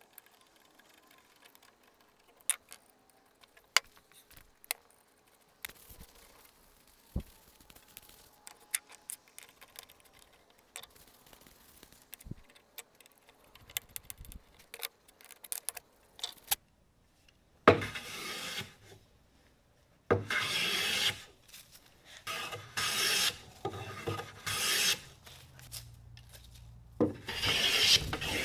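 Faint clicks and taps of metal parts and a screwdriver as a hand plane is put back together. Then a restored Stanley Bailey No. 4 bench plane shaves the edge of a board in six or so swishing strokes, each about a second long with short pauses between.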